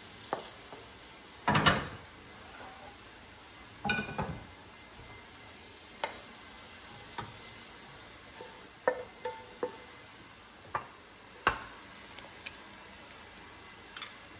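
Julienned carrots sizzling in a frying pan while a wooden spatula stirs and knocks against the pan, the loudest knocks about one and a half and four seconds in. Later come scattered clinks and taps as the carrots are slid onto a plate and the dishes are handled.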